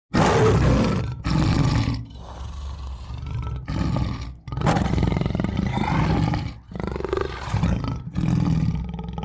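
Tiger roaring: several deep roars with lower growling between them.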